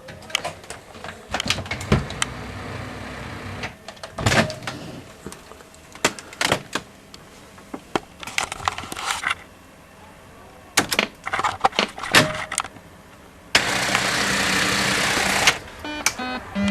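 adp Merkur Venus 4Asse coin-operated gaming machine working: a series of irregular mechanical clicks and clunks, then a steady rattling whirr for about two seconds, and short electronic beeping tones starting near the end.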